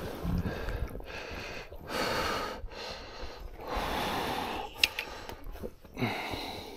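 A person breathing hard: a string of heavy breaths a second or two apart, with a sharp click about five seconds in.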